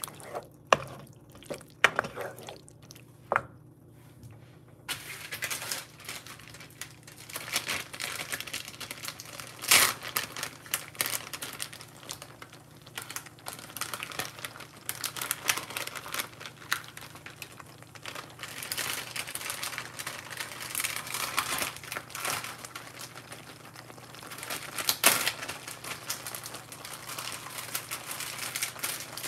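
Penne in a cream sauce simmering in a nonstick pan, crackling and popping steadily from about five seconds in. Before that, a wooden spoon stirring gives a few sharp knocks and scrapes against the pan.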